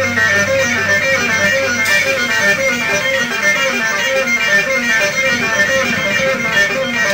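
A live rock band playing an instrumental passage, led by guitar picking quick repeated notes.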